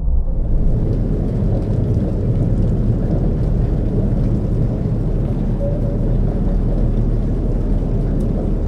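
Dark ambient drone, a sound-design texture: a steady low rumble with a faint crackling hiss above it, with no beat or melody.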